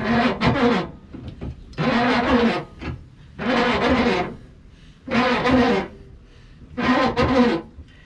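Background music with guitar, carried by a voice-like melody in short phrases about every one and a half seconds.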